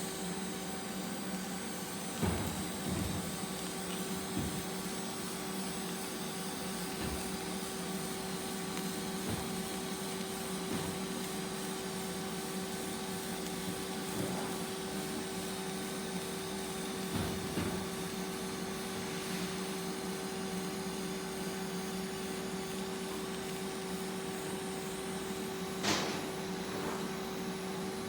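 TIG welding arc running at 80 amps: a steady buzzing hiss with an even hum under it, a few faint ticks, and one sharper crack near the end.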